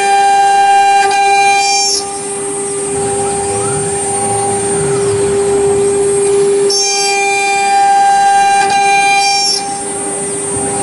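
CNC router spindle whining at a steady pitch while its end mill cuts grooves into a plastic vacuum-table surface. The cutting turns louder and harsher during the first two seconds and again from about seven to nine and a half seconds in.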